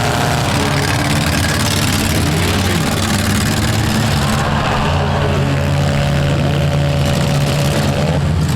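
Four-cylinder demolition derby cars' engines running steadily, with a higher steady whine joining in about halfway through.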